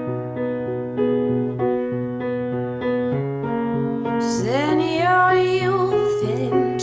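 Background music: electric piano playing slow sustained chords, joined about four seconds in by a singing voice over fuller accompaniment.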